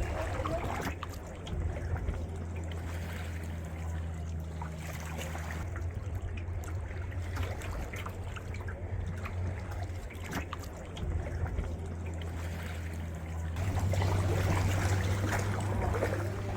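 Water trickling and splashing around a kayak being paddled, with small irregular drips and splashes over a steady low hum.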